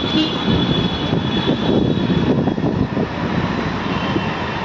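Strong wind buffeting a phone's microphone: a loud, unsteady rumble.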